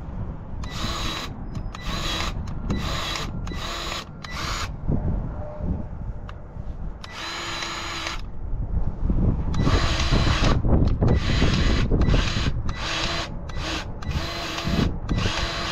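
Cordless battery-powered grease gun's motor whirring in trigger bursts, pumping grease into a power buggy's fittings. It runs in a quick string of short bursts, then one more, then longer runs with brief breaks.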